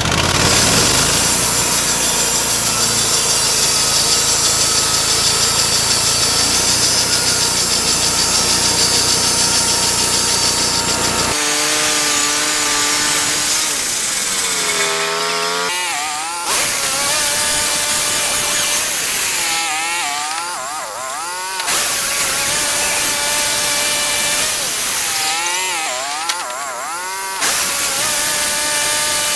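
Portable bandsaw sawmill running and cutting a log: a steady engine and blade noise at first, then, after an abrupt change about 11 seconds in, a pitched whine that wavers up and down as the load on the cut varies.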